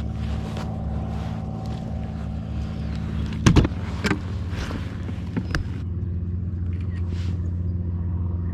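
A steady low mechanical hum, with a few sharp knocks and clatters from about three and a half to five and a half seconds in.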